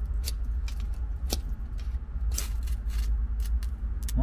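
Ferro rod struck repeatedly against a knife, the rod drawn back along the blade to throw sparks onto tinder: a series of short, sharp scrapes, the strongest about a second and two and a half seconds in, over a steady low rumble.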